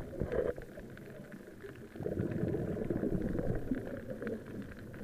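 Muffled underwater noise picked up through an action camera's waterproof housing: a low rumbling water sound with a scatter of faint clicks, quieter for a moment and louder again from about two seconds in.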